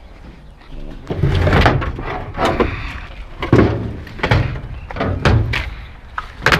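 Pieces of scrap metal clanking and thudding as they are handled and loaded, about half a dozen separate knocks, with the last sharp one at the very end.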